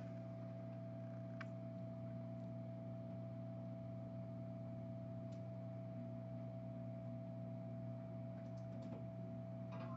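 Steady electrical hum with a constant higher tone over it, broken by a few faint clicks of small work on the bench.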